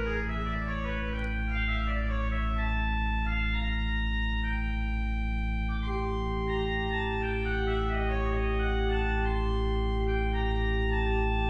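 Organ playing alone: deep notes held steady underneath while chords and quick falling runs move above them, with a new sustained note entering about six seconds in.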